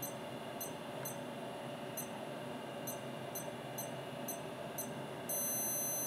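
Timex Data Link watch's beeper giving short high chirps about twice a second while it receives data from a flashing CRT screen. About five seconds in, a long steady beep starts, signalling that the transfer is complete. A steady hum of the computer and monitor runs underneath.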